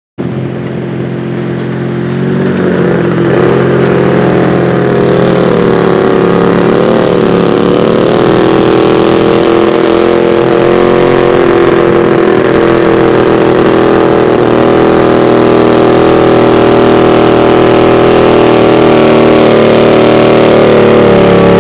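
Twin-cylinder pulling garden tractor engine running hard under load as it drags the weight sled down the track. It builds up over the first couple of seconds, then holds steady near full throttle with slight wavers in pitch.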